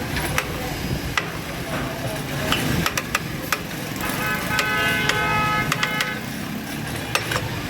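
A vehicle horn held steadily for about two seconds, near the middle, over a busy background with many sharp clicks and knocks.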